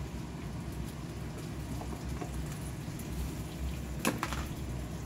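Gopchang stir-fry sizzling in a frying pan on a gas stove, a steady hiss, as more leftover gopchang is tipped in. A sharp clatter about four seconds in.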